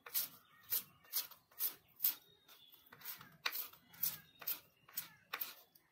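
Kitchen knife chopping fresh coriander leaves on a wooden cutting board. There are about ten sharp, evenly paced strikes, roughly two a second, with a pause of about a second midway.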